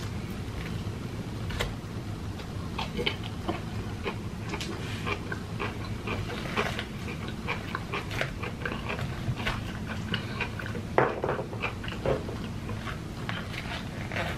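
Close-up eating of ripe jackfruit: irregular wet mouth clicks, lip smacks and chewing of the sticky pods, over a steady low hum.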